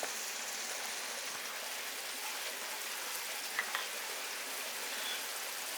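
Onions and tomatoes frying in hot oil in a kadai: a steady sizzle.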